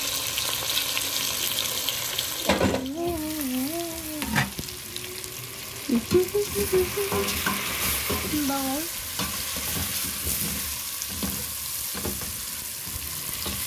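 Boiled beef chunks, tomatoes and shallots sizzling as they are sautéed in a stainless steel pot, stirred with a metal spoon that scrapes and knocks against the pot now and then.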